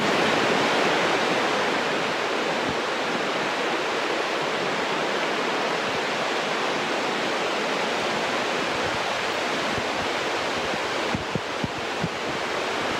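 Steady rush of a fast-flowing woodland creek over rapids. A few soft footsteps in fallen leaves come near the end.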